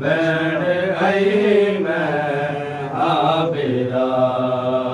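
Men's voices chanting a noha, a Shia Muharram mourning lament, together in long drawn-out melodic lines.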